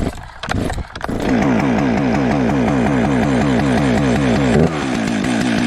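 Stihl MS 362 two-stroke chainsaw pull-started with the decompression valve in: a few quick cord pulls, then it catches about a second in and runs fast at the start-position throttle lock. Near the end its speed drops as it comes off the lock and settles to a warm-up idle.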